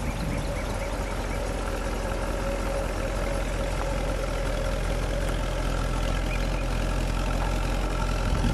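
1957 Buick Roadmaster's 364 cubic-inch V8 running at a slow idle as the car creeps along, growing gradually louder.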